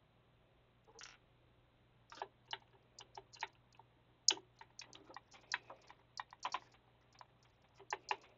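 Small screwdriver clicking and tapping against the printhead's retaining screws and the plastic carriage inside an Epson inkjet printer, as the three screws are undone. The sound is a run of irregular light clicks starting about a second in.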